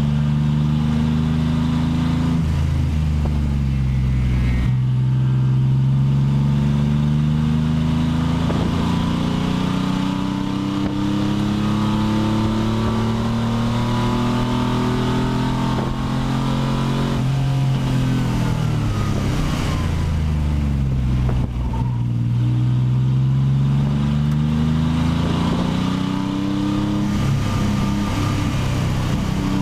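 Pontiac Fiero race car's engine heard from inside the stripped cockpit, running hard around a racetrack: the revs climb slowly along a long straight, fall away for several seconds as the car slows for a corner, then climb again.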